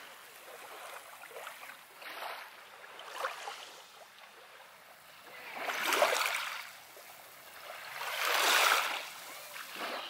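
Small waves lapping and washing in at the water's edge, in uneven swells, with two larger washes about six and eight and a half seconds in, the first the loudest.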